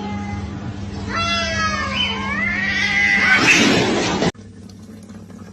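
A cat meowing and yowling: a falling meow, then a long drawn-out caterwaul that rises and falls in pitch and turns harsh and raspy before cutting off abruptly about four seconds in.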